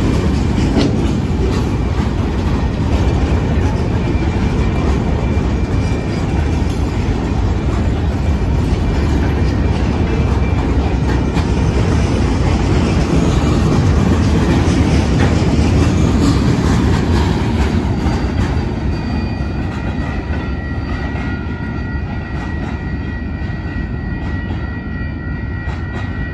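Arizona Eastern Railway freight train of boxcars rolling past at low speed: a steady heavy rumble of wheels on rail with scattered clacks over the joints. The rumble fades as the last cars go by, and a thin high squeal rises in the last few seconds.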